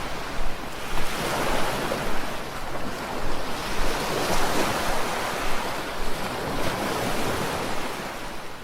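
Ocean surf: waves washing in with a steady rushing noise that swells and ebbs, mixed with wind.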